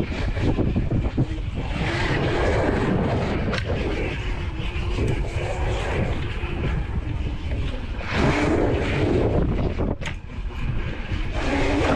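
Wind rushing over the microphone of a moving electric bike, with city traffic and a few short rising whines.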